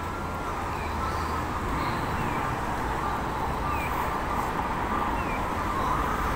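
Short, falling electronic chirps repeating about once a second from a Japanese accessible pedestrian crossing signal, over a steady hum of road traffic.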